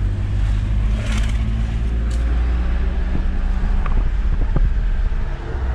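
A car running along a road, heard from inside the cabin: a steady low rumble of engine and road noise, with a few light clicks and rattles.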